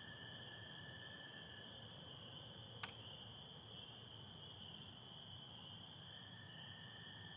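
Faint frog chorus: spring peepers calling as a steady high band, with an American toad's long trill stopping about two seconds in and another toad trill starting near the end. A single sharp click about three seconds in.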